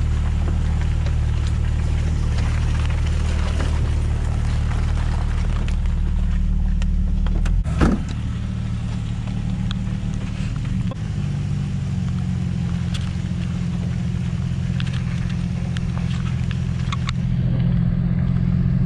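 Jeep Wrangler TJ engine running steadily at low revs while crawling a trail. A single sharp knock comes about eight seconds in, and the engine note shifts after it and again a few seconds later.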